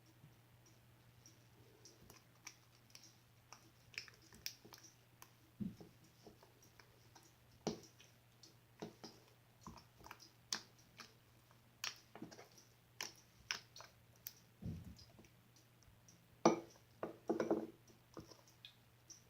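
Glossy slime being squished and stretched by hand, giving off irregular sticky clicks and pops, with a quicker, louder run of them near the end. A faint steady electrical hum lies underneath.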